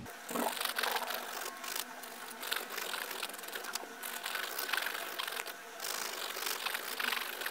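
Nail file rasping back and forth over fingernails in quick dry scratching strokes, taking the glossy layer off the regrown part of the nail.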